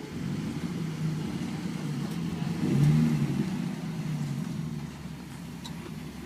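Rock-crawling buggy's engine running under load and revving up about three seconds in, then easing back.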